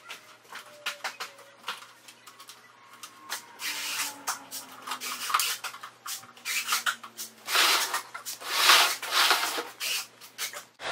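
Phillips screwdriver turning a latch screw into its backing plate by hand: a run of small clicks and squeaks, then longer rubbing rasps, twice.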